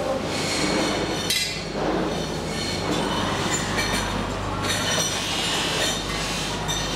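Metal motorcycle handlebars clinking and plastic bags rustling as the handlebars are bagged, over a steady machinery hum.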